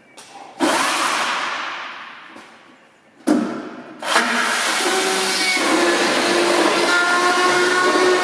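Power saw: two short bursts that each fade away, then from about four seconds in a steady run with a high whine.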